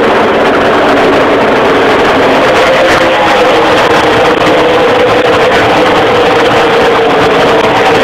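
Pack of race cars' engines at full throttle, loud and continuous, the engine note sinking slightly from about halfway through.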